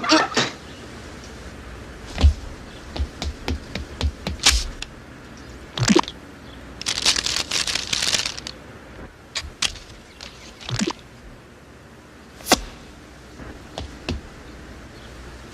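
A run of cartoon sound effects: scattered sharp clicks and knocks, with a noisy burst about a second and a half long in the middle.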